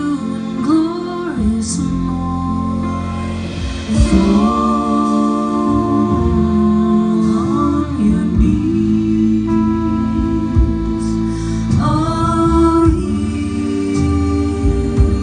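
Three women singing in close harmony, holding long chords that shift together, accompanied by a small live band of accordion, guitar, double bass and drums.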